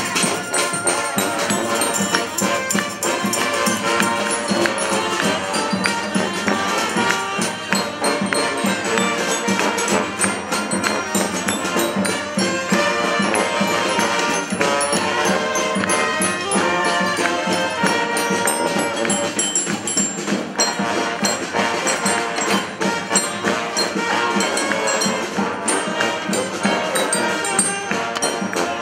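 Street brass band playing an instrumental passage, horns over a steady beat of hand percussion.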